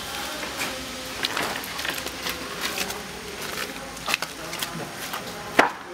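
Faint background voices under a steady haze, with scattered sharp clicks and taps; the loudest click comes near the end.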